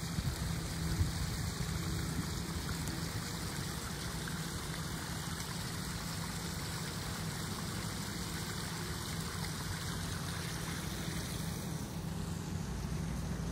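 Small koi-pond waterfall splashing steadily over stacked rocks into the pond, with a steady low rumble underneath.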